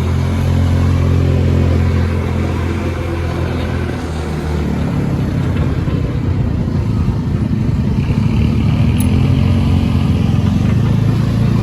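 Motor vehicle engine running steadily under way. It eases off about four seconds in and picks up again, rising in pitch, after about eight seconds.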